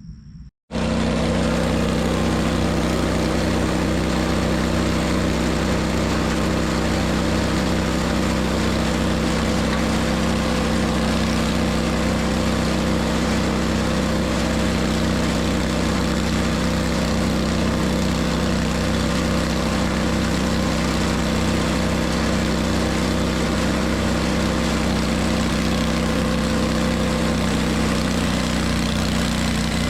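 An engine idling steadily, its pitch and level unchanged throughout, starting suddenly about half a second in.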